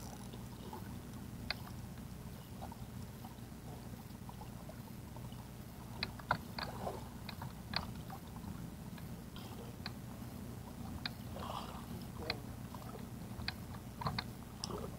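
A small boat's motor running steadily at trolling speed, a low even hum, with scattered sharp clicks and light knocks from the fishing reel and tackle being handled, a cluster of them about six seconds in and more near the end.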